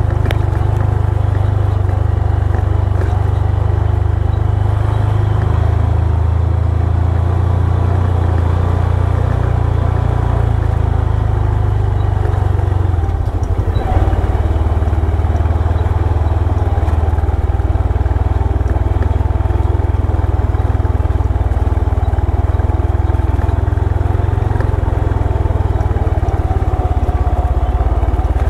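Motorcycle engine running steadily on the move, with a brief change in the engine note about halfway through.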